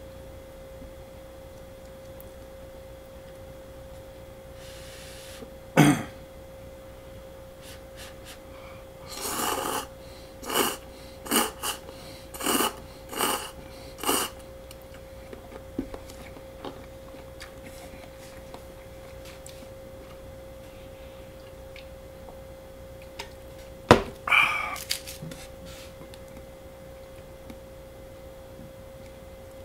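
Slurping instant cup noodles: about six short slurps in quick succession, then one more later, over a steady electrical hum. Two sharp knocks stand out, one about six seconds in and a louder one just before the last slurp.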